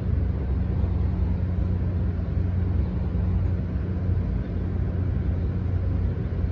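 Steady low rumble of an approaching Amtrak diesel locomotive, still some distance off.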